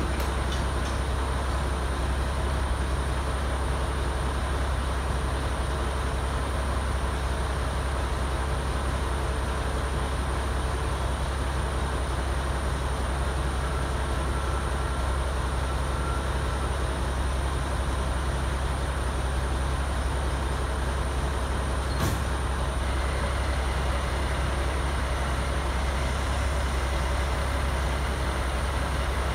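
Diesel truck engine idling steadily, with a single sharp click about 22 seconds in.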